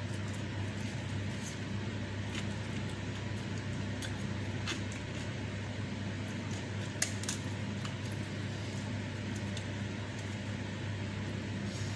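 Close-miked eating sounds: scattered short wet clicks of chewing and of fingers handling rice and a raw papaya leaf, with one sharper click about seven seconds in, over a steady low hum.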